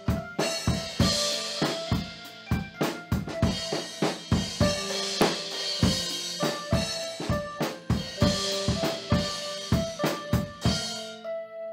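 Drum kit played in an improvised groove: kick, snare and cymbal hits at a steady pace, over sustained pitched notes from another instrument that step from one pitch to another. The drumming stops near the end, leaving the held notes.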